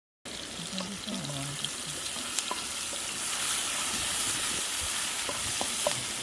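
Meat sizzling as it fries over the campfire cooking, a steady hiss with scattered sharp pops.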